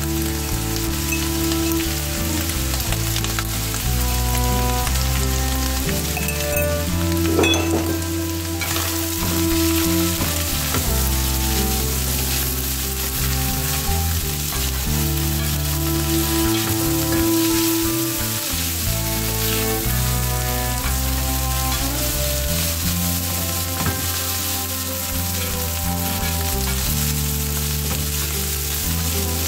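Split peas and onion sizzling as they fry in a nonstick pan, stirred and scraped around with a plastic spatula, over steady background music.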